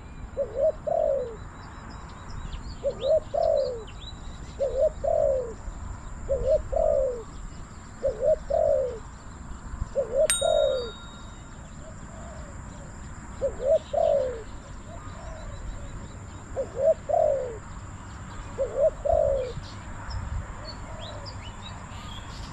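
Spotted dove cooing: a short phrase of a few low coos, repeated about every one and a half to two seconds, with a lull in the middle. Small birds chirp faintly higher up over a steady high whine, and there is one sharp click about ten seconds in.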